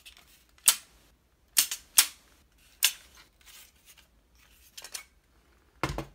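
Sharp clicks and knocks of plastic and metal as the Apple IIc's internal floppy drive, a metal chassis in a plastic bezel, is handled and lifted out of the case, about six separate knocks.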